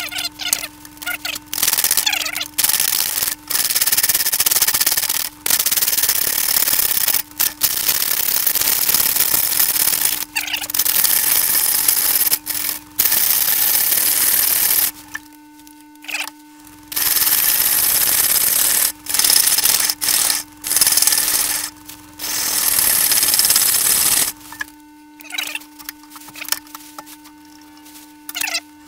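A lathe chisel cutting into a spinning, out-of-round green-wood blank: a loud rushing scrape in bursts of a few seconds with short breaks as the tool takes the wobble off the high spots. A steady hum from the lathe runs underneath, and the cutting quiets for a while near the middle and again near the end.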